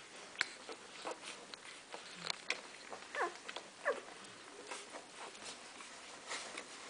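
Week-old golden retriever puppies nursing, with scattered wet sucking and smacking clicks and two short falling squeaks about three and four seconds in.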